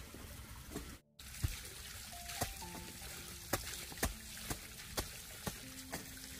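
Brush fire burning, a steady hiss with sharp crackles and pops about every half second.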